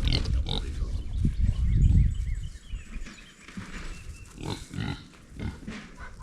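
Pig grunting in a few short calls, with a low rumble over the first two and a half seconds.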